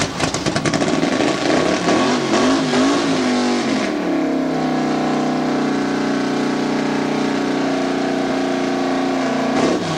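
Open-header V8 engine of a Ford Ranger mud truck revving unevenly as it pushes through deep muddy water. From about four seconds in it is held at steady high revs, then changes pitch just before the end.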